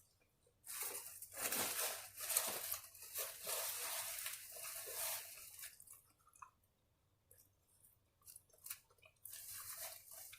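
Close-up eating sounds of someone crunching and chewing food, in a long stretch starting about a second in and again near the end.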